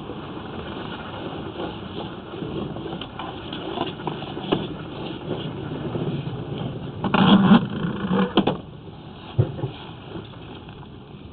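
Sewer inspection camera's push cable being pulled back out of the pipe, the camera head scraping and clicking along the pipe wall. A louder clatter of knocks lasts about a second and a half, starting about seven seconds in, with one more sharp knock shortly after.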